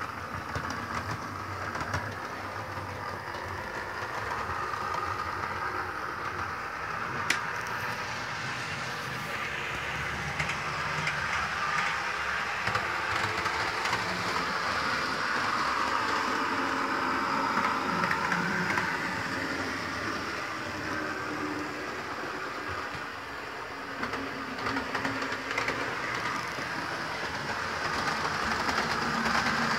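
Model Class 158 diesel multiple unit running on the layout's track: a steady whirring rumble of motor and wheels on rail that swells and fades. A single sharp click about seven seconds in.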